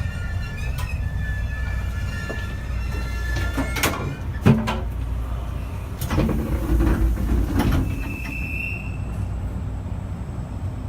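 JR East E653-1100 series train running, heard from inside the car with a steady rumble. The Hitachi IGBT VVVF inverter's whine fades out about four seconds in. Then the wheels knock over rail joints with several sharp clicks, the loudest a clunk about four and a half seconds in, and there is a brief wheel squeal near eight seconds.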